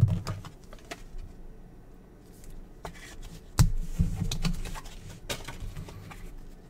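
Trading cards and card packs being handled on a table: scattered light clicks and taps as cards are flipped and set down, with a few sharper snaps.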